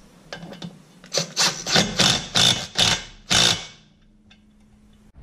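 A hand ratchet tightening the secondary clutch bolt on the shaft: about seven short rasping strokes, two to three a second, starting about a second in and stopping before the end.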